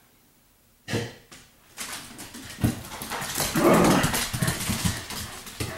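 Dogs at play: dog vocal sounds mixed with scuffling and clattering, starting about a second in and loudest a little past halfway.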